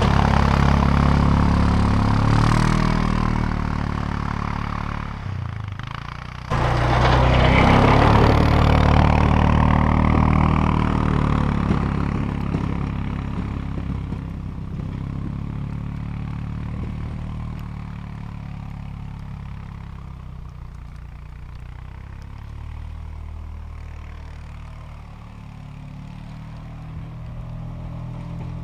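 ATV engine running and revving as the quad moves off, jumping suddenly louder about six seconds in, then growing steadily fainter with distance and rising a little again near the end.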